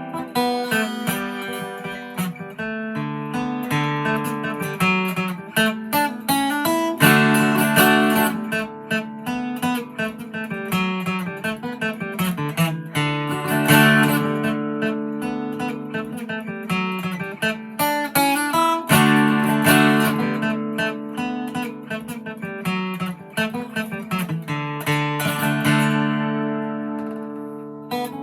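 2002 Gibson J-45 acoustic guitar played solo: a fiddle tune in D, quick melody notes picked over strummed chords. A chord rings and fades away near the end.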